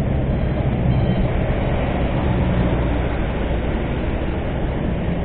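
Honda scooter riding through heavy traffic at about 40 km/h: a steady low rumble of engine and road noise, with trucks running close alongside.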